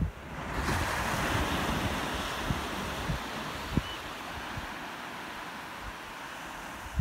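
Small waves breaking and washing up a sandy beach. The surf hiss swells about half a second in and slowly eases off, with wind buffeting the microphone in low thumps.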